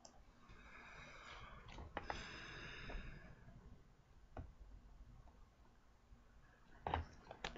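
Faint clicks and taps of a plastic movie case being handled, with a long breathy exhale in the first few seconds and a short cluster of sharper clicks near the end.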